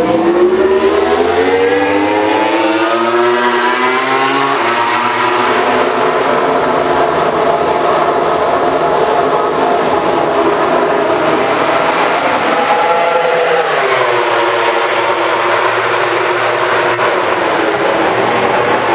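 Suzuki GSX-RR MotoGP bike's inline-four engine accelerating out of a corner, its pitch climbing over the first few seconds, then running at a steadier note, with another rise about two-thirds of the way through.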